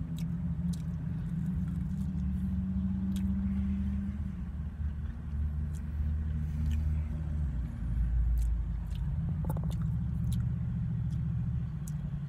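Low, steady rumble of a vehicle engine running, heard inside a minivan's closed cabin, with a few faint clicks over it.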